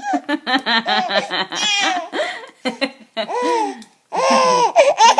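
Baby laughing in a quick run of short bursts, a belly laugh at the noises being made for her.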